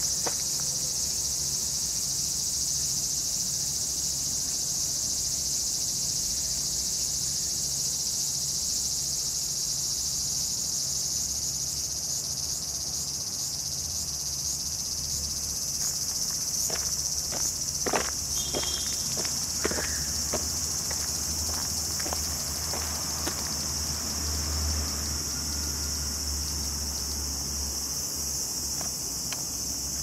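Steady, high-pitched chorus of insects in the trees, unbroken throughout, with a few sharp clicks in the middle.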